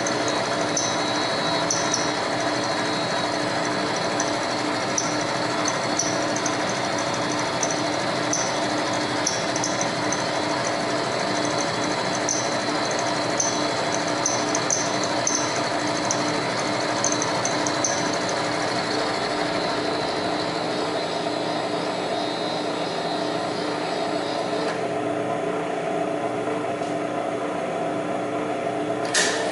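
Precision Matthews PM-935TV vertical mill running a half-inch end mill at about 800 RPM, side-milling steel on a light 10-thousandths pass. A steady spindle hum runs under irregular high ticks from the cut, and the ticks stop a little past halfway. A high whine drops out near the end, and a single sharp click follows.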